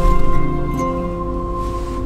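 Background music of steady held notes over a low rumble.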